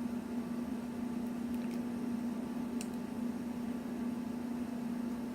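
Steady low hum in the room, with a few faint clicks of toy robot parts being handled, about one and a half and three seconds in.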